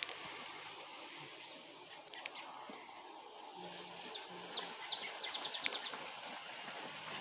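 Arabian horse grazing at close range: grass being torn and chewed in scattered crisp crunches. About four seconds in, a songbird sings a short phrase of three quick downslurred notes followed by a fast trill.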